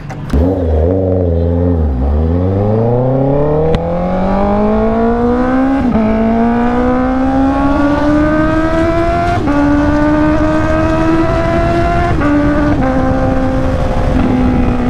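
Honda CB650R's inline-four engine pulling away and accelerating through the gears. The pitch climbs steadily in each gear and drops back at each of about four upshifts, with wind and road noise underneath.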